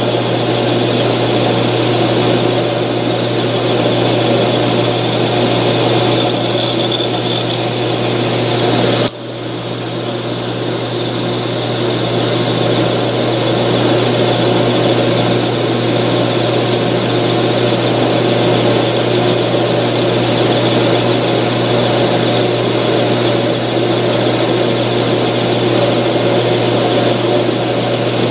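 12-inch Craftsman (Atlas-built) metal lathe running on a slowed belt speed while a parting tool cuts off a piece in the chuck: a steady motor hum with cutting noise. The sound drops briefly about nine seconds in and then builds back up.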